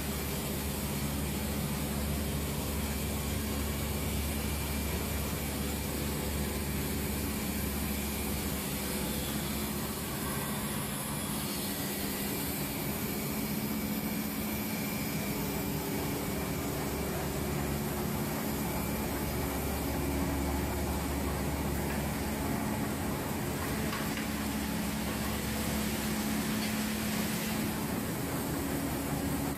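Mitsubishi sheetfed offset printing press running: a steady mechanical drone with a low hum.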